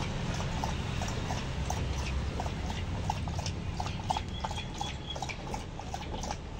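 Golden retriever lapping water from a stainless steel bowl, in a steady rhythm of about three laps a second.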